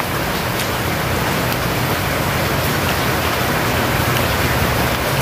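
Steady rushing background noise with a faint low hum underneath, even throughout.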